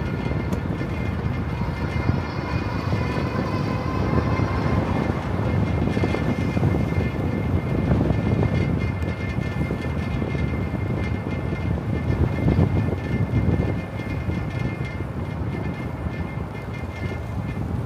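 Wind buffeting the microphone of a camera mounted on a moving e-bike: a steady rumble, with a faint steady high whine above it.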